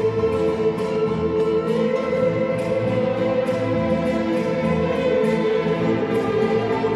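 Mariachi ensemble playing live: violins bowing held notes over a steady strummed guitar rhythm and bass.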